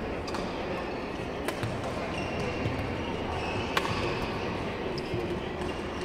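Badminton rackets striking a shuttlecock during a rally: a few sharp, short hits a second or two apart over a steady murmur in the hall.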